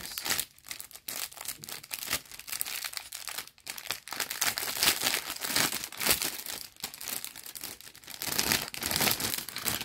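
Clear cellophane bags crinkling and crackling in the hands as pin badges are unwrapped from them, an irregular run of sharp crackles.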